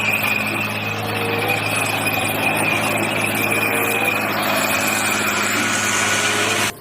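A heavy engine running steadily: a low hum with a continuous high squeal over it, cutting off suddenly near the end.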